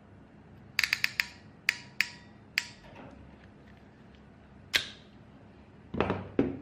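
RJ45 crimping tool clicking sharply as it is worked, four quick clicks then a few single ones, followed near the end by two louder knocks as the tool is set down on a wooden desk.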